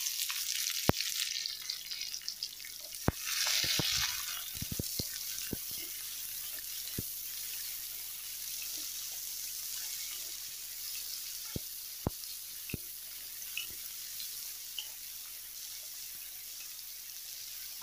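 Sliced onions sizzling in hot oil in a kadai with garlic and dried red chillies, the sizzle louder for a moment a few seconds in. Scattered sharp clicks of a spatula knocking against the pan as the onions are stirred.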